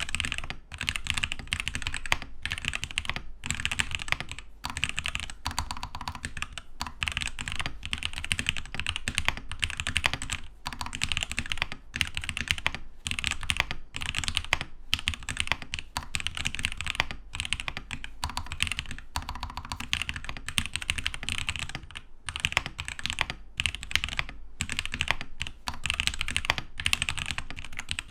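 Continuous typing on a Keydous NJ80 mechanical keyboard fitted with TTC Ace switches on a steel plate: a dense, fast clatter of keystrokes with brief pauses every second or two.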